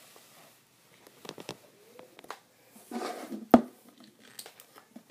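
Small plastic slime containers being handled: scattered light clicks and knocks, a brief rustle, then one sharper click about three and a half seconds in.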